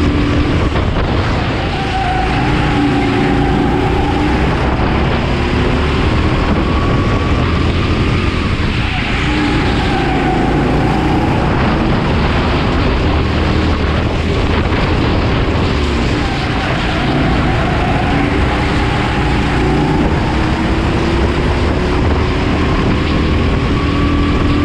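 Honda GX270 single-cylinder four-stroke engine of a racing go-kart running hard, its pitch rising as it accelerates and dropping as the driver lifts for corners, over and over.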